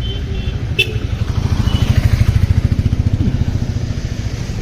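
Motorcycle engine running close by, its rapid exhaust pulses swelling louder about two seconds in and then easing off.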